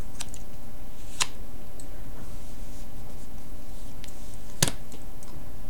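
Tarot cards being handled and laid face up on a cloth-covered table: a few light clicks and a sharper snap near the end, over a steady low hum.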